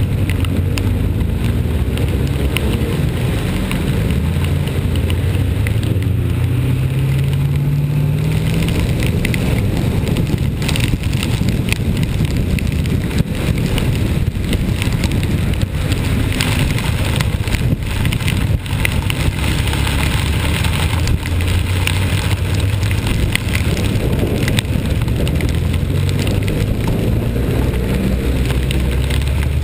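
Vehicle engine running under steady road and wind noise, its pitch rising as it accelerates about four to eight seconds in.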